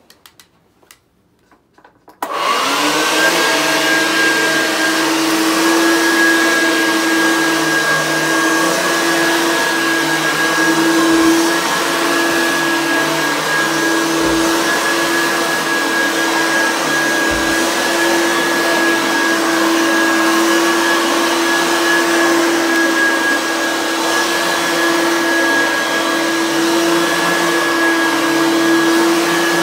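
Oreck XL upright vacuum cleaner switched on about two seconds in, its motor spinning up quickly and then running steadily with a constant hum and a higher tone, while pushed back and forth over thick carpet.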